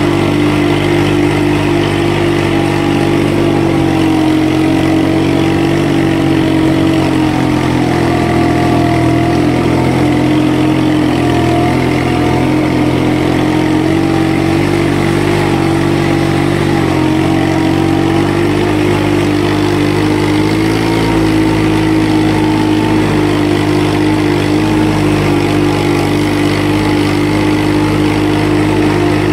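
Mitsubishi 4x4 mini tractor's diesel engine running steadily while driving through a flooded paddy field, its pitch wavering slightly now and then.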